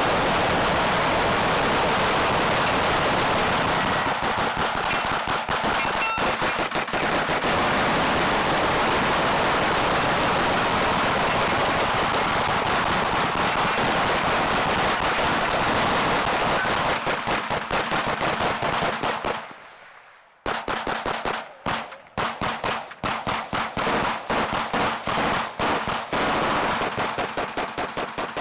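Rapid, overlapping gunfire on a shooting range: a dense, unbroken string of shots for most of the time, a brief pause a little past the middle, then shorter strings of shots with gaps between them.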